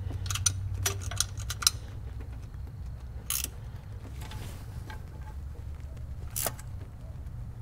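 Scattered light metal clicks and clinks of hand tools and fasteners as a throttle body unit is snugged down, several close together in the first couple of seconds, then single clicks about midway and near the end. A low steady hum runs underneath.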